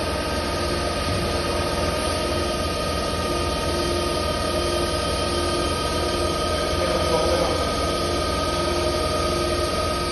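CNC machine running: a steady mechanical whine and hum, with a lower tone that cuts in and out at a regular pace, roughly once a second.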